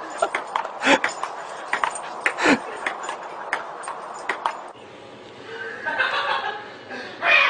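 Table-tennis rally: a ping-pong ball clicking sharply off the paddles and table several times a second, stopping abruptly a little under five seconds in. Indistinct voice-like sounds follow near the end.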